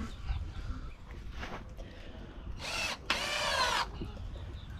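Cordless drill driving a screw: a short burst about two and a half seconds in, then a longer run of just under a second with its pitch shifting as it works.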